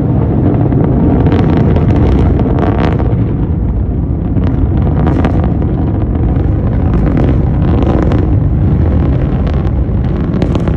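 Atlas V rocket's RD-180 first-stage engine during launch: a loud, steady low rumble with irregular sharp crackles through it.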